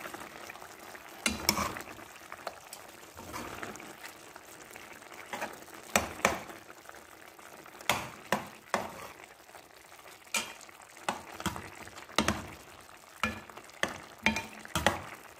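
Chicken adobo in its soy-sauce broth simmering in a pan with a steady bubbling hiss, while a slotted spoon stirs the pieces and knocks sharply against the pan about a dozen times.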